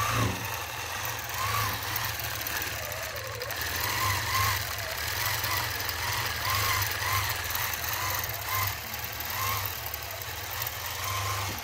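A longarm quilting machine stitching in stitch-regulated mode, running with a steady low hum. Its pitch briefly rises and falls again and again as the machine head is guided through a free-motion meander.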